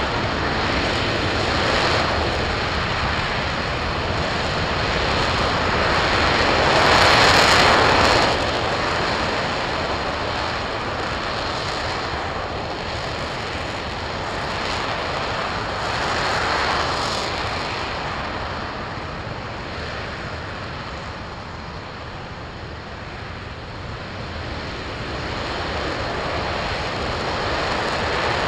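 RS-25 liquid-hydrogen/liquid-oxygen rocket engine firing continuously on a test stand during a long-duration hot-fire test: a dense, rushing roar. It swells about seven seconds in and again around sixteen seconds, and eases somewhat a little past twenty seconds.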